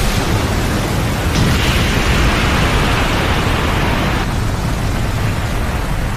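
Anime sound effect of a massive magical energy explosion: a loud, steady rumble of noise. A brighter hiss joins it about a second and a half in and drops away about four seconds in.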